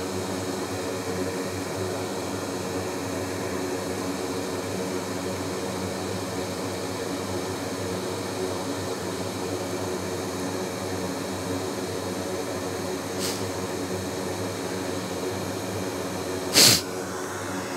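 Steady hum of a fan in the room, broken once near the end by a single short, loud sneeze.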